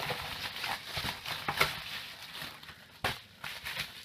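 Rustling and crinkling of a plastic padded mailer envelope being handled and its contents pulled out, with a few sharp crackles.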